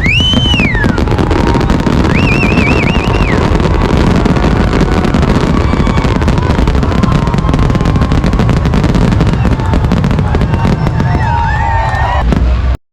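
Fireworks going off in a dense, continuous barrage of rapid bangs and crackling with a deep rumble, with a few shrill whistles rising and falling over it. The sound cuts off abruptly just before the end.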